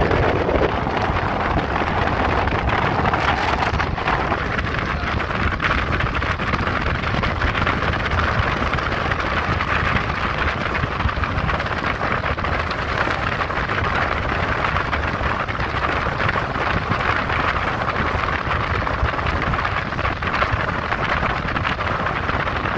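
Passenger speedboat under way: a steady rush of engine, water and wind noise on the microphone. The lower part of the sound thins slightly about four seconds in.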